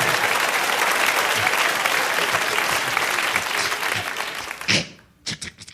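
Studio audience applauding, the applause dying away about four and a half seconds in. A single sharp knock follows, then a few faint clicks.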